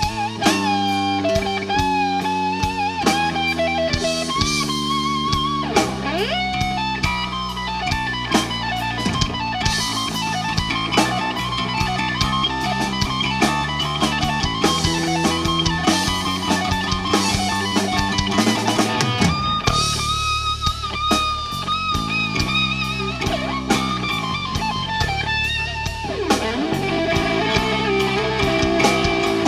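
Live blues band playing an instrumental passage: a lead electric guitar solo of bent, wavering sustained notes over bass guitar and a drum kit.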